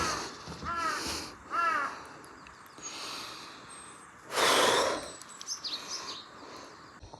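A bird gives three harsh calls about a second apart, followed about four seconds in by a loud, short rush of noise. Faint high chirps from small birds come after it.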